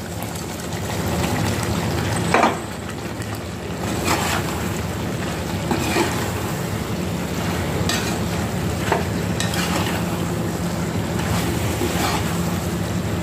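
Fried jackfruit pieces sizzling in spiced oil in a wok as a spatula stirs them into masala cooked until the oil separates, with clinks and scrapes of the spatula against the pan every second or two.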